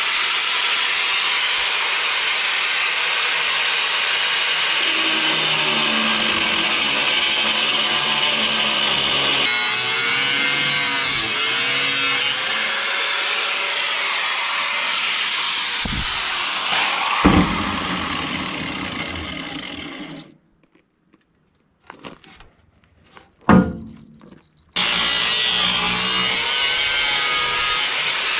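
Angle grinder cutting steel, a loud steady hiss whose whine wavers as the disc loads in the cut. Two sharp metal knocks come about two-thirds of the way in, then the grinder winds down and stops; a single loud clank falls in the pause before it starts cutting again near the end.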